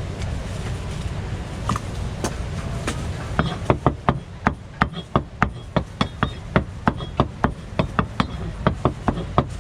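Kitchen knife chopping on a cutting board: a couple of separate knocks, then from about three and a half seconds in a quick, steady run of chops, about three to four a second, over a steady low rumble.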